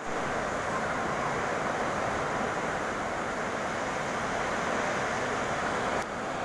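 Steady hiss of falling water, fine spray or rain, such as a bird's rain bath gives, with a brief break about six seconds in.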